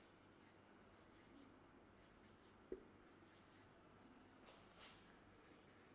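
Marker pen writing on a whiteboard: faint, intermittent squeaky scratches of short pen strokes, with one light knock a little before halfway.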